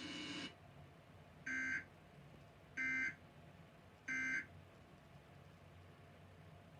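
Emergency Alert System end-of-message tones from a TV: three short, identical bursts of digital data squawk, about a second and a half apart, the signal that the Amber Alert broadcast is over.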